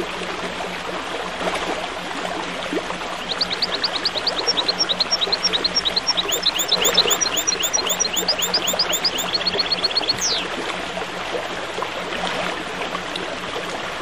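Water running steadily, like a murmuring stream, with small birds singing over it. From about three seconds in to about ten seconds a bird gives a rapid run of high chirps, about five a second. A single falling whistle follows.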